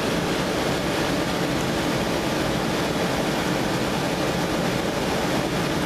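Laser cutter's exhaust fan and air assist running, a steady rushing noise with a low hum underneath.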